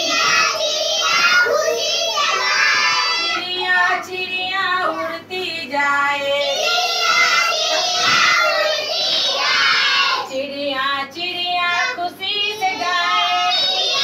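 A group of young children singing a Hindi rhyme about little birds together in chorus, phrase by phrase with short breaks between lines.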